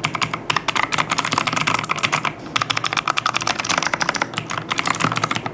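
Fast typing on a Fantech Atom Pro 66 mechanical keyboard with clicky blue switches, a rapid run of key clicks with a brief pause about two and a half seconds in.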